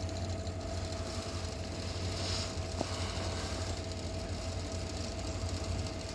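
Diesel locomotive engine running with a steady low rumble as a tanker train approaches.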